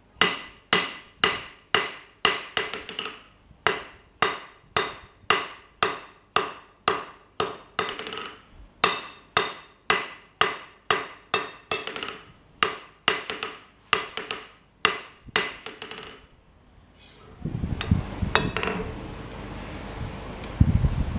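Hammer blows on a hot steel bar on an anvil, about two a second, each with a short ring, drawing out a taper. The blows stop about three-quarters of the way through. After a brief lull, a steady low rumbling noise with a few sharp clicks follows.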